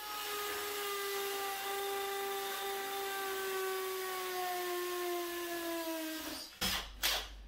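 Cordless drill-driver driving a long screw through a timber batten into a wall plug. The motor runs steadily for about six seconds, its pitch sinking slightly as it slows under load, then stops, followed by a few sharp knocks.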